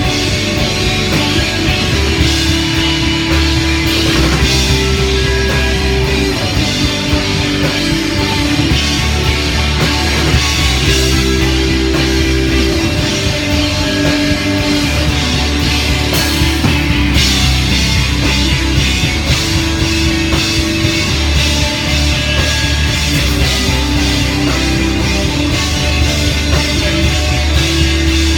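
Rock band playing live: two electric guitars, an electric bass and a drum kit, loud and steady throughout.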